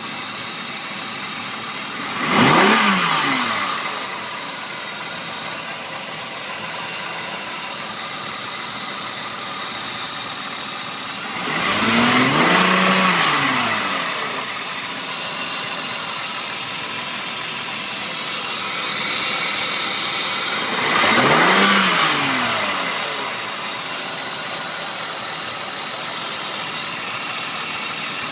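1996 BMW E36 328is's 2.8-litre inline-six idling with a steady hiss underneath, blipped three times so the engine note rises and falls briefly each time.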